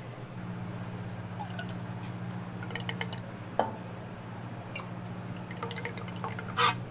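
Food-preparation handling noises: small clicks, taps and wet dripping sounds, with a sharper tap about halfway through and a louder rustle near the end. Under them runs a steady low machine hum that stops at the end.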